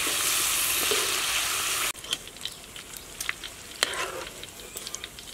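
Hot oil sizzling loudly as spiders deep-fry in a wok, with a wire skimmer stirring through the oil. The sizzle cuts off suddenly about two seconds in, leaving only faint scattered clicks.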